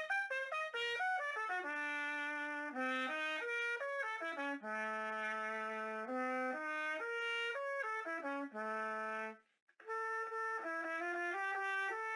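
Solo trumpet playing melodic phrases: the 'Alfred', a French-style prototype trumpet by AJ Atelier des Cuivres, modelled on an Alfred Aubertin instrument, being tried out. The line mixes held notes and quicker runs, breaks off briefly about nine and a half seconds in, then resumes with a second phrase.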